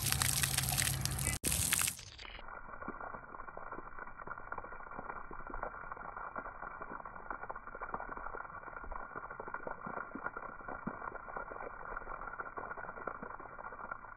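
Splash-pad water jets spraying and spattering onto wet concrete, a steady watery hiss with many small drip and splash ticks. For the first two seconds a louder, brighter rush of noise covers it, then cuts off suddenly.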